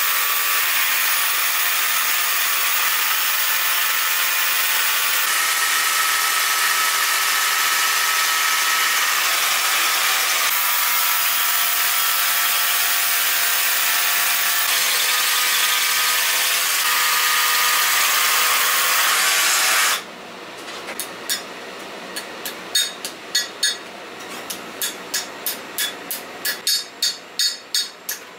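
A handheld power tool runs steadily for about twenty seconds, its motor pitch stepping a few times, then cuts off. Sharp hammer blows follow, uneven at first and then settling to about two a second near the end.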